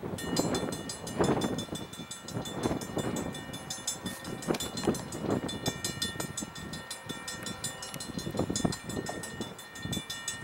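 Railroad grade-crossing warning bell ringing rapidly and steadily over the low, rhythmic clatter of a train moving on the track.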